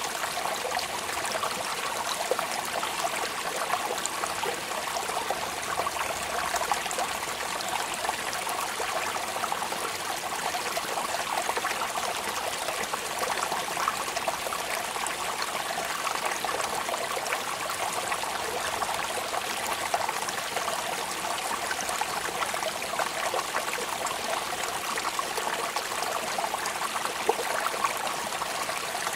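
Steady rain falling: an even hiss of countless small drops, unchanging throughout.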